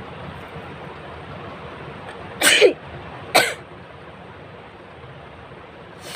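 A person sneezing twice, about a second apart, each sneeze sudden and loud, brought on by tickling the inside of the nose.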